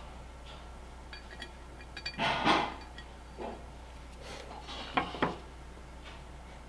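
Small metal parts of a Stromberg 97 carburetor and hand tools clinking and clattering on a workbench as they are handled during reassembly, with a louder clatter a little after two seconds in and two sharp clicks about five seconds in.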